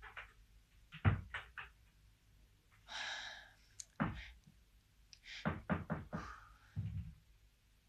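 A string of knocks and thuds: three quick ones about a second in, a sharp one near four seconds, a quick run of them around six seconds and a dull thump near the end, with a brief rustle about three seconds in.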